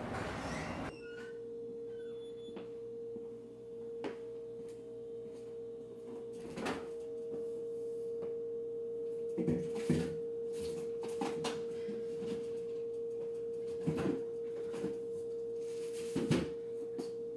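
A steady, pure single tone comes in about a second in and holds without change, with scattered short knocks and clicks over it.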